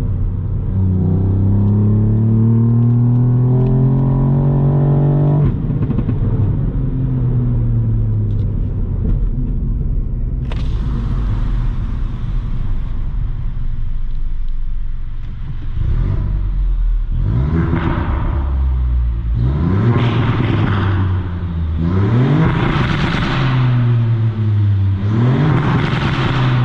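Ford Fiesta ST three-cylinder turbo engine accelerating, its note climbing for about five seconds before dropping sharply at a gear change. Later it is revved four times, each rev rising and falling.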